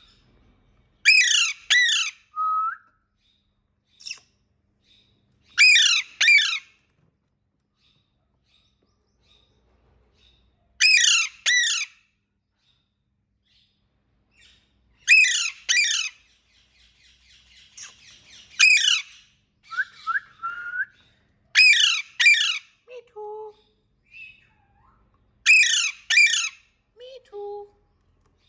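Pet green parakeet giving loud, harsh, high squawks, calling out to its mate. The squawks come in quick doubles or triples about every four to five seconds, with softer chatter between.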